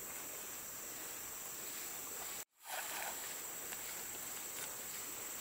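Steady high-pitched insect drone of the rainforest over an even rush of river water. The sound drops out abruptly for a moment about halfway through, then comes back.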